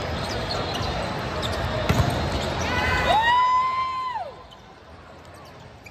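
Volleyball being played in a large hall over crowd noise, with sharp thuds of ball contacts, the loudest about two seconds in. About three seconds in comes a held, high-pitched tone lasting about a second, which rises at its start and slides down at its end. The crowd noise then drops off sharply.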